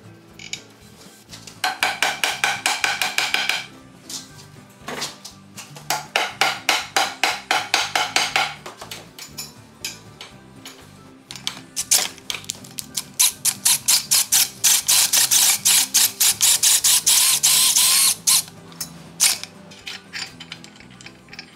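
Ratchet wrench clicking in quick runs of several clicks a second, broken by short pauses, as the bolts clamping the spokes into a cast-iron wagon hub are drawn tight. Background music plays underneath.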